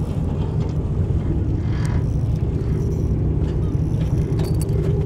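Steady low rumble of the boat's engine running. A few faint clicks come near the end.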